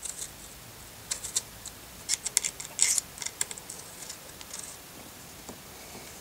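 Light metallic clicks and scrapes of hands and a small tool working the scope-mount ring screws loose, coming in quick clusters about a second in and again from two to three and a half seconds in, then thinning out.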